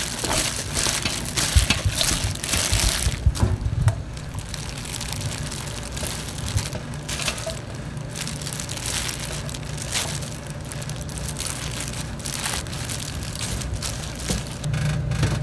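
Wet crunching and rustling of food being tossed and mixed, busiest in the first few seconds and then lighter with scattered clicks, over a steady low hum.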